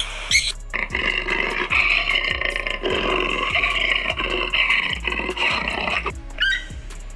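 A big cat roaring in one long, rough roar lasting about five seconds, over background music with a steady beat; short bird chirps come just before it and again near the end.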